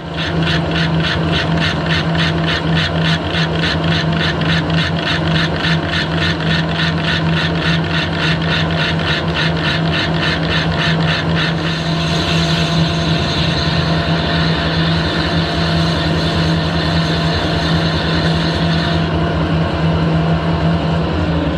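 Harrison metal lathe starting up and running with a steady hum, turning down the rough edge of a cylinder cover casting. A fast regular ticking runs through the first half, and the higher cutting sound changes about twelve seconds in.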